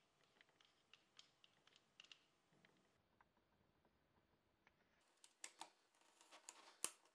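Scattered small clicks and taps of a tape measure being handled, its metal end hook fingered and then its blade set against a board. The clicks are faint at first, with a few louder ones in the last two seconds and the sharpest just before the end.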